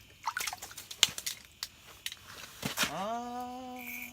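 A scatter of sharp clicks and knocks, then a drawn-out shouted "hey!" that rises and holds near the end.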